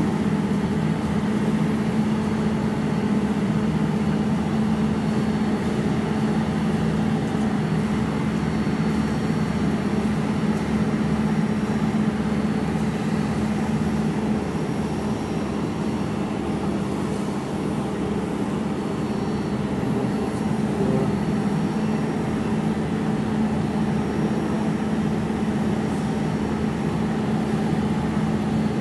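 Jewelry laser welding machine running with a steady hum and even whir, its cooling running continuously, with a strong low tone throughout.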